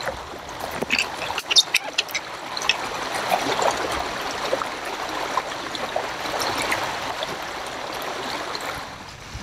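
Water trickling and splashing close by over the steady rush of a fast river current, with several sharp clicks in the first three seconds.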